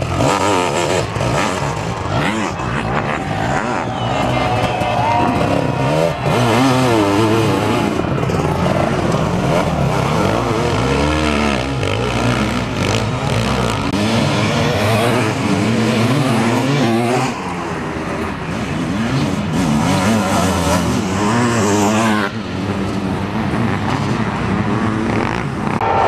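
Several sidecar motocross outfits racing past, their motorcycle engines revving hard and rising and falling in pitch over and over as they accelerate and ease off.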